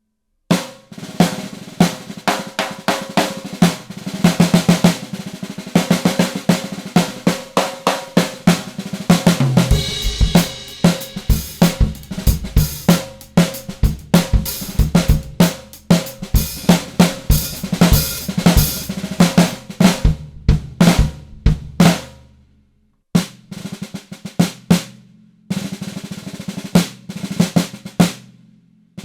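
Solid-block imbuia 14x3.5" piccolo snare drum by the luthier Fatarelli being played in fast strokes and rolls, its heads ringing, with low bass-drum hits in the middle stretch. The playing stops briefly twice near the end.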